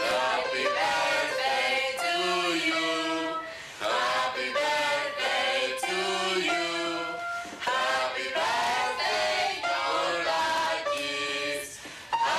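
Music with voices singing together, choir-like, in short phrases separated by brief breaks.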